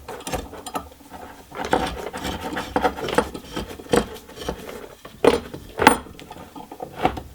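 Pipe clamp fixed jaw being slid onto a half-inch threaded pipe and spun onto its threads: irregular metal scraping and rattling with sharp clicks. The loudest knocks come past the middle.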